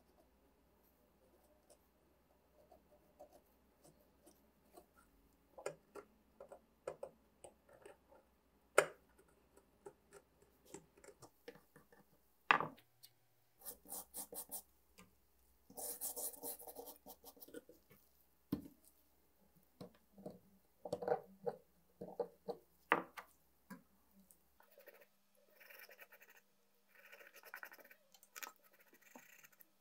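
Hard crust being picked, scraped and knocked off a corroded metal pepper grinder with a pointed pick and a small hammer: irregular scratching and crunching, with a few sharper knocks standing out.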